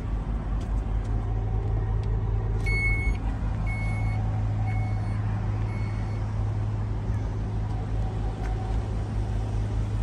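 Steady low hum of an idling vehicle. About three seconds in, four short electronic beeps sound, a little under a second apart, the first slightly longer.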